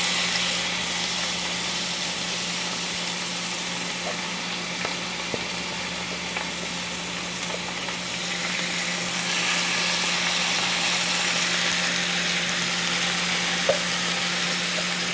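Sliced onions sizzling in hot oil in a stainless steel frying pan, a steady hiss that swells somewhat about two-thirds of the way through, with a few small clicks.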